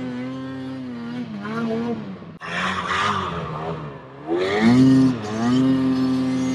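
Two-stroke engine of a Ski-Doo Summit snowmobile running hard in deep snow, its pitch dipping and climbing as the throttle is worked. About two and a half seconds in it cuts off sharply, a rush of noise follows, and then the engine revs up quickly and falls back, loudest about five seconds in.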